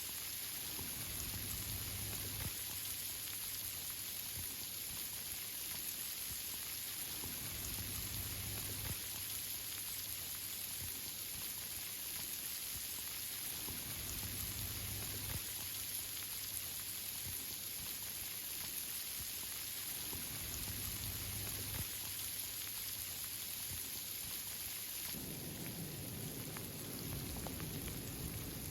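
Steady rain falling through tree leaves, an even hiss of drops, with a low rumble swelling and fading every several seconds.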